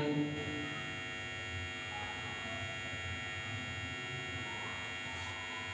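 Steady electrical mains hum, with the tail of the recited voice fading out in the first half second.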